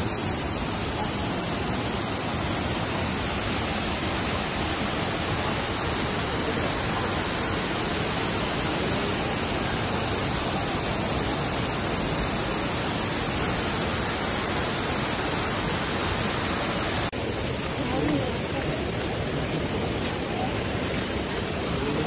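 Waterfall: a steady rush of falling water, with fine spray coming down, that dips slightly in level about seventeen seconds in.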